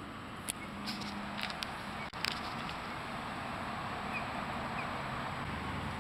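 A few light clicks and knocks of gear being handled in a canoe over a steady outdoor background hiss, bunched in the first two seconds or so. Two faint high chirps come later.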